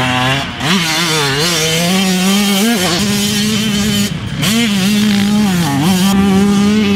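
Yamaha YZ125's single-cylinder two-stroke engine revving hard through corners, its pitch held high with a few brief dips and climbs as the throttle is rolled off and back on.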